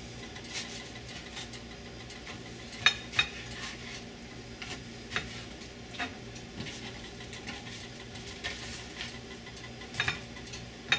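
Ceramic knife chopping toasted corn tortillas on a plastic cutting board: sparse, irregular knocks of the blade against the board, with two sharp ones about three seconds in and a cluster near the end, over a steady low hum.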